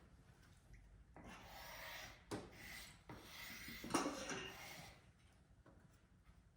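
A spokeshave blade rubbed back and forth on a water stone while being sharpened: about four scraping strokes, each just under a second, with a light knock at some of the turns.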